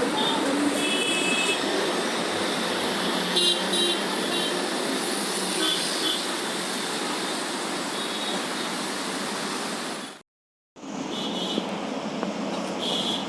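Street traffic noise with several brief car horn toots. The sound cuts out for about half a second around ten seconds in.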